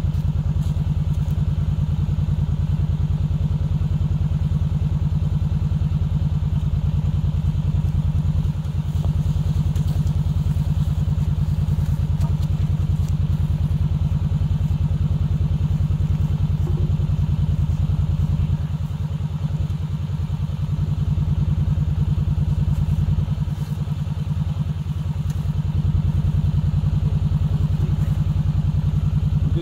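An engine running steadily at an even speed, with a low-pitched sound that eases slightly a few times.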